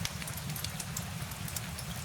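Steady rain with a low rumble and a hiss, and sharp individual drops ticking irregularly a few times a second.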